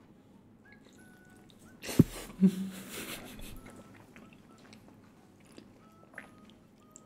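A sharp knock about two seconds in, then about a second of crunchy biting and chewing on crispy fried chicken coated in crushed Super Ring cheese-corn snack, with a short low hum.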